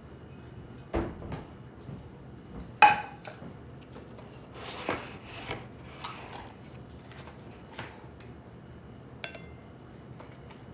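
Scattered knocks and clinks of household objects being handled over a low steady hum. The loudest is a short ringing clink about three seconds in, with another near the end.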